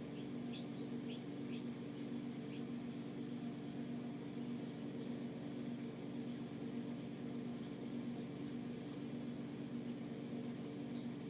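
Steady low machine hum with a few faint, high peeps from baby birds in the first three seconds and again near the end.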